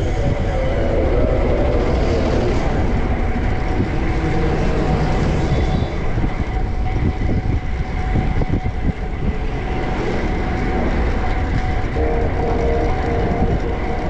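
Wind rushing over a bike-mounted action camera's microphone while riding, a loud, steady low rumble with street noise mixed in. A pitched hum from a nearby vehicle joins about twelve seconds in.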